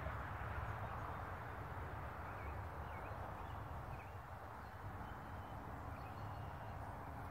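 Steady outdoor background noise with low rumbling, and a few faint bird chirps between about two and four seconds in.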